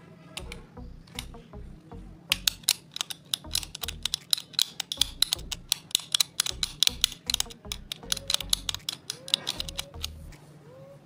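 Utility knife blade scraping at an LED bulb's circuit board: a fast run of sharp, scratchy clicks that starts a couple of seconds in and keeps up until near the end.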